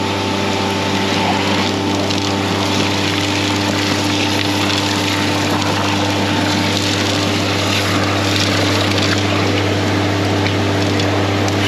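Ram Vac HX12 hydro-excavation vac truck vacuuming through its suction tube while a water wand cuts soil in the hole. A steady low hum from the truck lies under a continuous rushing hiss of air, water and slurry being pulled up the tube.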